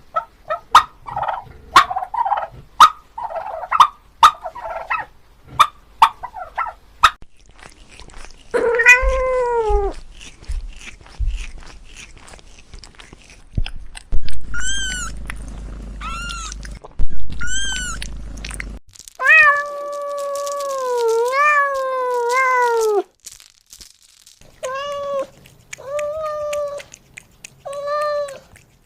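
A turkey gobbling in the first few seconds, then a domestic cat meowing: a series of separate meows, some short and some long and wavering.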